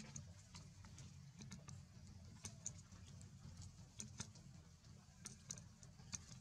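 Long-tailed macaque chewing close by: faint, irregular sharp clicks and smacks, a few to several a second, over a low rumble.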